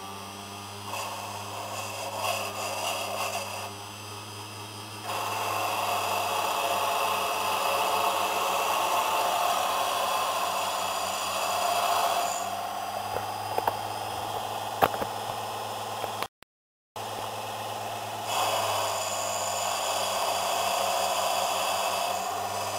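Emco Unimat 3 mini lathe running with a steady motor hum while its tool bit turns down the end of a cast-iron piston blank. The cutting noise grows louder about five seconds in, with a few sharp ticks near the middle.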